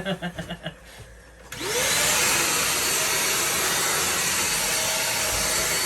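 Deerma DX700 handheld stick vacuum cleaner switched on about a second and a half in, its motor whining up to speed and then running steadily.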